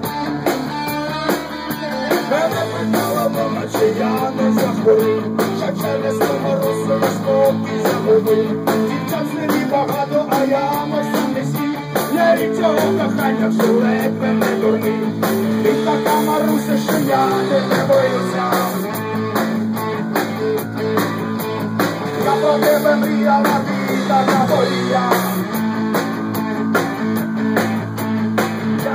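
Rock band playing live: electric guitars, bass guitar and drum kit in an instrumental passage, with a wavering melodic guitar line over the rhythm.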